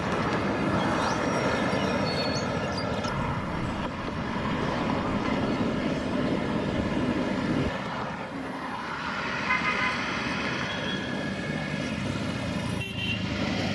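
Low, steady engine rumble that drops away about eight seconds in, followed by a horn tooting around ten seconds in and briefly again near the end.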